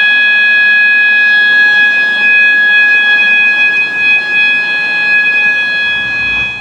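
System Sensor MA/SS-24 fire alarm horn, set to an 800 Hz steady tone, sounding loud and unbroken.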